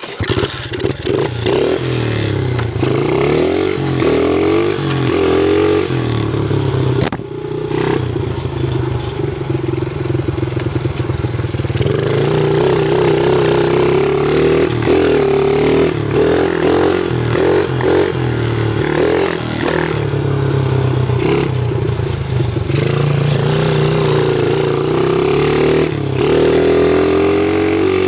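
Dirt bike engine running hard on a track, its pitch climbing and dropping again and again as it accelerates, shifts and backs off.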